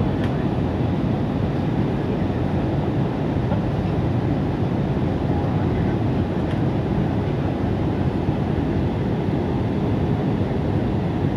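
Steady low rumble of an Airbus A320 airliner, unchanging in pitch and loudness.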